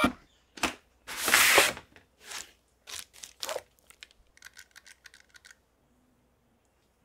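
Cardboard toy packaging being handled and opened: short scraping rustles, the longest about a second in, as the box and its molded pulp insert tray are slid and lifted. Near the middle, a quick run of about ten light clicks.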